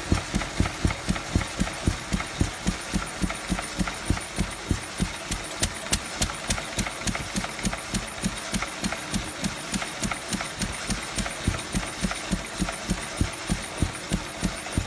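Lister D single-cylinder stationary engine running slowly and evenly at its lowest speed, the governor almost out, with a steady beat of exhaust pulses from the silencer.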